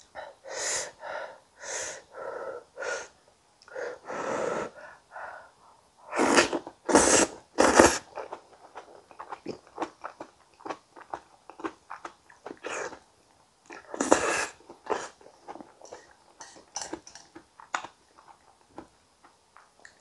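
Close-miked eating of a soft, well-cooked potato and tomato gratin: wet chewing and mouth sounds in bursts about a second apart, three louder ones in quick succession around six to eight seconds in and another near fourteen seconds, with small clicks between.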